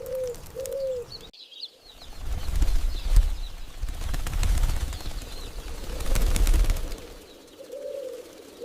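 Pigeons cooing, then a loud flurry of flapping wings for several seconds, then cooing again near the end.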